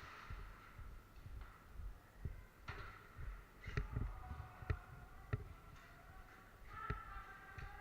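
A few sharp single clicks, about a second apart, of airsoft guns firing, over low thumps and faint distant shouting.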